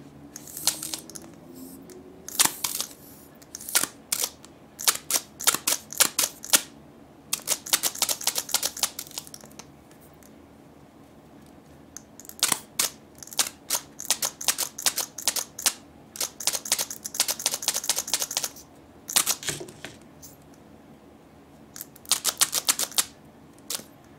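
Small vinyl toy figures being handled close up: fingers and nails click and tap on them in quick bursts of clicks, about ten bursts with short pauses between.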